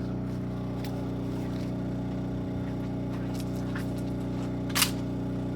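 A machine hums steadily at one even pitch, with a brief scraping rustle about five seconds in.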